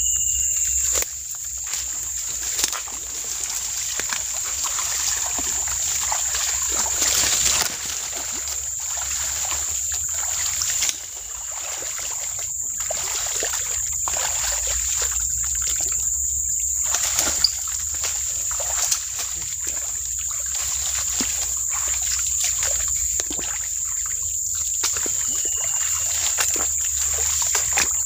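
Footsteps splashing and squelching through shallow swamp water and mud, with brush rustling as a person pushes through undergrowth, irregular steps throughout. Behind them runs a steady high-pitched drone of crickets or other insects.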